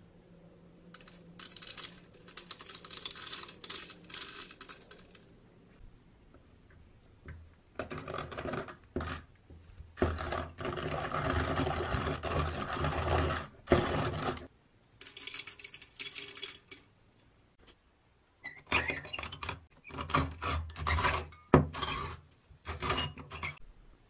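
Restored Peugeot hand-crank coffee grinder being cranked with coffee beans in it: clattering and crunching in several bursts with short pauses between, the longest steady stretch in the middle.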